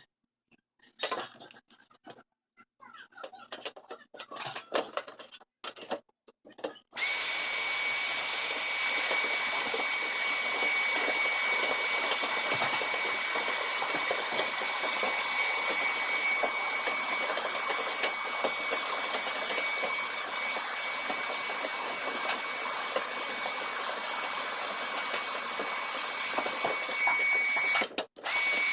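Scattered handling knocks and rustles. About seven seconds in, a small electric motor tool switches on and runs steadily with a loud rush of air and a steady high whine, cutting out for a moment near the end.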